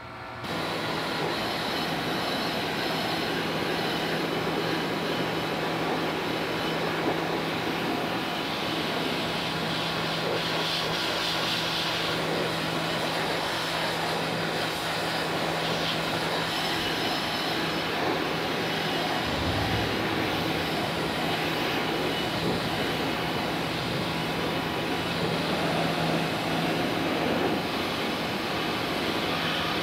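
Sun Joe SPX-9009-PRO electric pressure washer running steadily, its motor-pump giving a constant hum under the hiss of the high-pressure spray striking a metal kitchen hood filter. It starts about half a second in.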